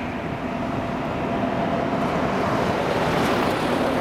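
A lorry drives past on the road, its engine and tyre noise growing louder as it comes close near the end.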